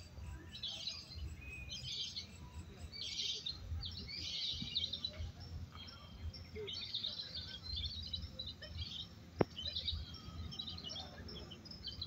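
Many caged contest songbirds chirping in bursts of rapid, high chattering trills, over a low background rumble of the crowd. A single sharp click sounds about nine seconds in.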